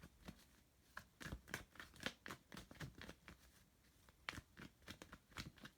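Tarot cards being shuffled and handled by hand: a faint, irregular run of soft card clicks and flicks.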